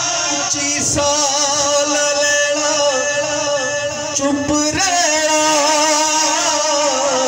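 A man singing a Punjabi naat, holding long wavering notes with brief breaks about a second in and again past the four-second mark.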